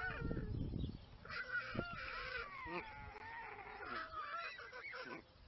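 White stork chicks making begging calls in the nest: a jumble of wavering, whining calls that bend up and down in pitch. There is low rumbling on the microphone in the first second.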